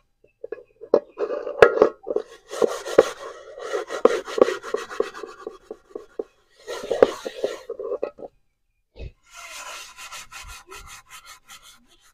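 A metal cooking pot scrubbed by hand, rapid rubbing strokes against the metal with a few sharp knocks of the pot. The scrubbing stops briefly about six and eight seconds in, then goes on lighter and higher near the end.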